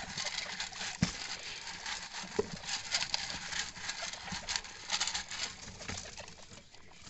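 Pet guinea pigs scurrying and popcorning in their cage: quick rustling patter with scattered sharp knocks as they hop and land, the loudest about a second in.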